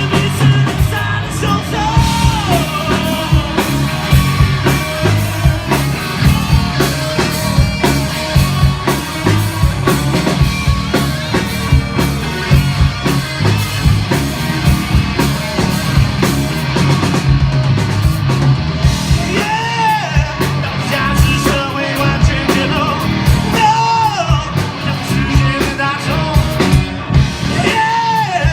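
Rock band playing live: driving drum kit and band with a singer whose lines slide up and back down several times.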